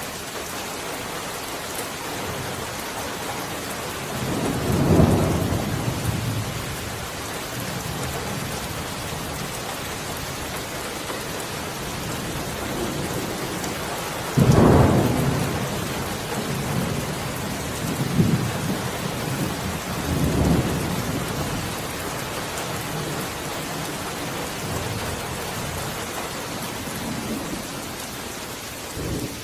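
Steady heavy rain with thunder rolling over it: a rumble about five seconds in, a sudden louder clap about halfway through that rumbles away, then two smaller rumbles a few seconds later.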